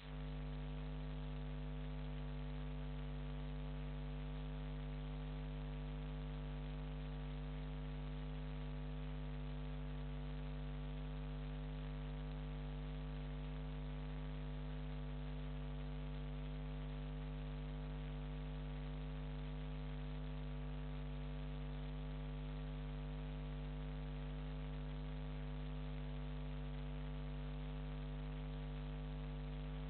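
Steady electrical mains hum with many evenly spaced overtones, unchanging throughout, over a faint hiss: electrical interference picked up by the webcam's audio rather than any sound from the scene.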